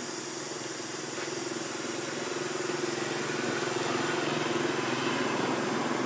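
A motor engine running steadily with a low hum, growing gradually louder.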